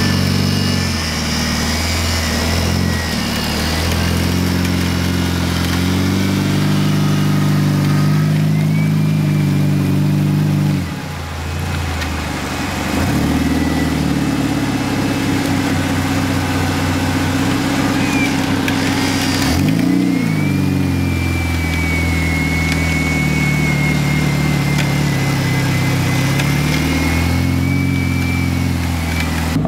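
GAZ-69's four-cylinder side-valve engine revving hard under load while driving through mud, its pitch rising and falling, dropping sharply about eleven seconds in and again near twenty seconds before climbing back and holding high. A thin high whine runs above the engine.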